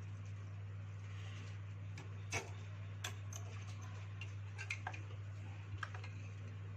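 Scattered light clicks and taps of small parts and tools being handled on a workbench, about ten in all, one sharper than the rest, over a steady low hum.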